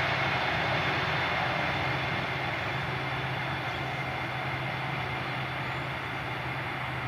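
Airbus A320-232's IAE V2500 jet engines running as the airliner rolls out along the runway after landing, a steady roar that slowly fades as the aircraft moves away.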